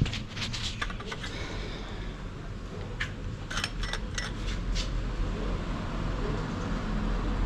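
Light clicks and taps of parts being handled, in two clusters, over a steady low rumble.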